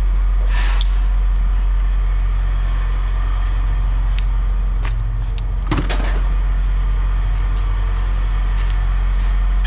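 A steady low machine drone runs throughout, like an engine or motor running nearby. A few sharp clicks and knocks stand out over it, the loudest cluster a little past halfway.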